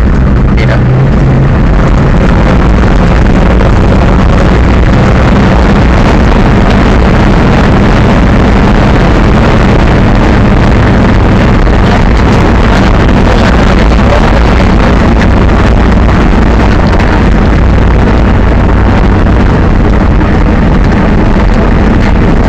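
Monster truck's engine running loud and steady as it drives, heard from inside the cab, the recording overloaded and distorted.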